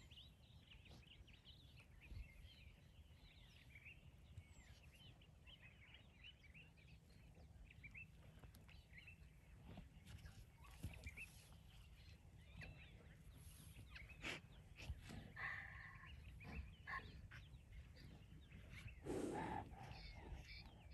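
Faint chirping and trilling of wild birds over a low rumble of wind, with scattered small clicks. A brief louder noise comes near the end.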